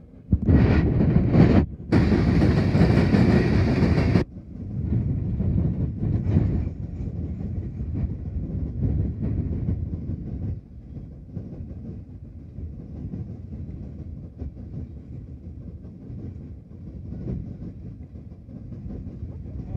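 Empty CSX coal cars rolling past with a steady low rumble of wheels on rail and some clickety-clack. A loud rushing noise covers the first four seconds and cuts off sharply, and the rumble eases a little after about ten seconds.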